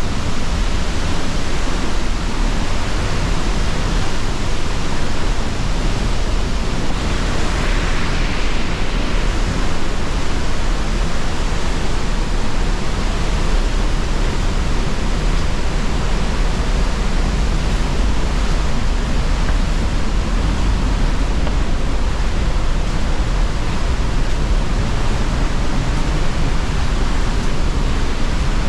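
Loud, steady roar of a large waterfall, the Pailón del Diablo, with water crashing down in an unbroken rush and heavy low rumble.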